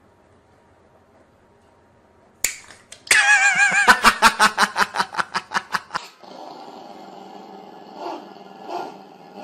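A sharp click, then a loud warbling sound pulsing about five times a second for about three seconds; after it, a small dog growls in short growls about a second apart near the end.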